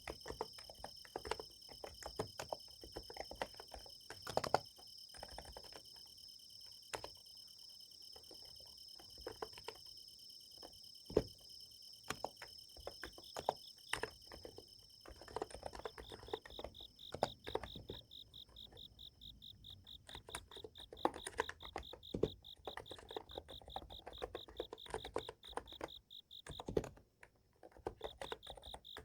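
Typing on a NiZ Plum x108 electrostatic capacitive keyboard: irregular soft keystroke clicks over a steady, high-pitched chorus of summer-night insects. About halfway through, the insect sound changes to a fast pulsing trill.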